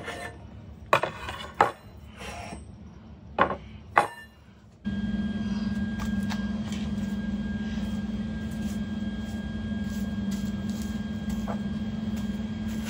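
Several separate knocks and clanks of steel tubing being handled on a trike frame. About five seconds in, a steady machine hum starts abruptly, with a thin high whine over it, and carries on.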